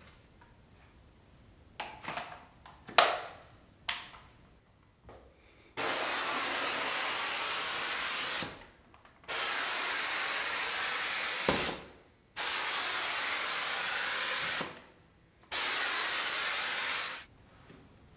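A few clicks and knocks as a microfibre cover is fitted onto a cleaning head, then a handheld steam cleaner hissing out steam in four bursts of two to three seconds each, every burst starting and stopping abruptly.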